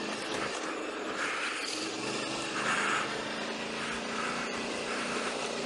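Royal Enfield motorcycle engine running steadily.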